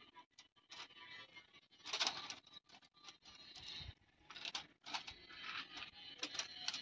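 Thin bamboo sticks rustling and clicking against one another as hands push and adjust them around a ring, in light, irregular taps and scrapes.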